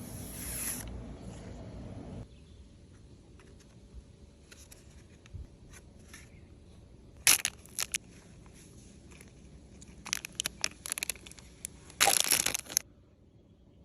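Packaging being handled and torn open: scattered short crinkling and tearing noises, with a louder tearing burst of under a second near the end.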